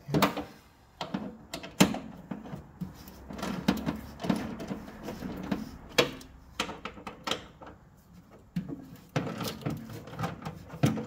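A wrench working loose the half-inch bolts that hold a Jeep CJ7's front fender: scattered, irregular metal clicks and knocks, with handling noise between them.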